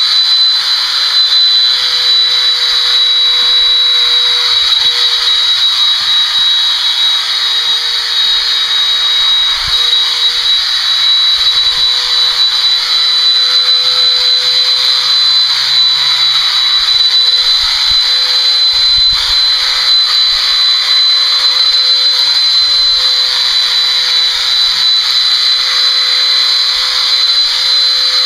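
Electric horse body clippers running steadily with a high whine while clipping a horse's leg hair.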